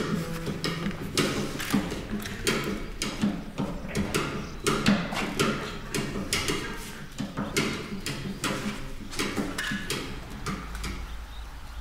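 Irregular sharp knocks and clicks, a few a second, thinning out and getting quieter over the last few seconds, with a low rumble coming in near the end.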